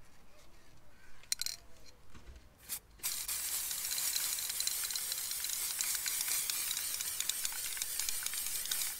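Aerosol spray can of clear coat lacquer spraying in one long, steady hiss that starts about three seconds in. A couple of short clicks come before it.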